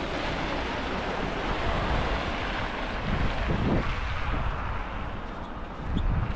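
Steady rushing noise of street traffic going past, swelling between about two and four seconds in with a low rumble near the middle.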